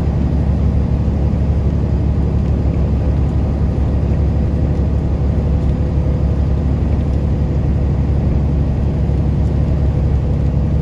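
Steady low drone of a truck's engine with tyre and road noise, heard inside the cab while cruising on a wet highway.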